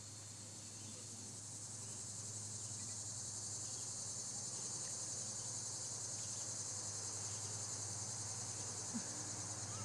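Steady, high-pitched chorus of insects in the trees, swelling a little louder a few seconds in, over a faint low hum.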